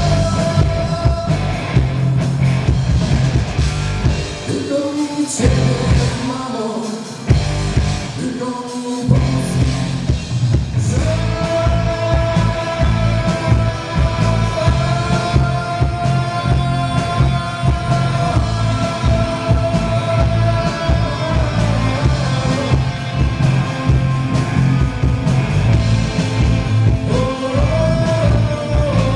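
Live rock band playing: drums, bass and distorted electric guitars with singing over them. The band cuts out briefly a few times in the first third, then plays on, with a long held note through the middle.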